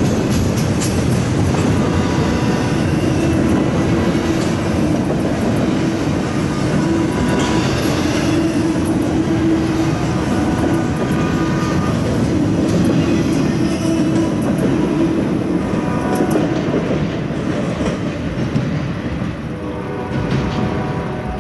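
Double-stack intermodal container well cars of a CSX freight train rolling past, steel wheels clicking over the rail joints. The noise eases off over the last few seconds as the end of the train goes by.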